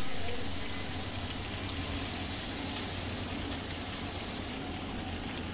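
Water running steadily in a decorative water fountain, trickling and splashing, with two brief sharper splashes near the middle.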